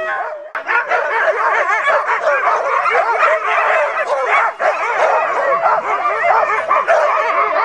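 A team of sled dogs barking and yipping all at once, a dense chorus of short overlapping yelps with no let-up.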